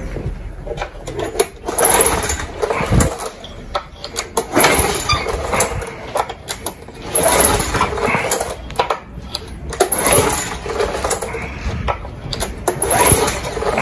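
Honda Komame F220 cultivator engine being pulled over on its recoil starter about five times, each pull a whirring crank that never catches: the engine won't start, which the owner puts down to a carburetor service gone wrong.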